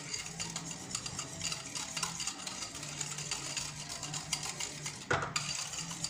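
Wire whisk beating a creme de leite, sugar and cinnamon mixture in a ceramic bowl, the wires clicking rapidly against the bowl. A louder knock about five seconds in.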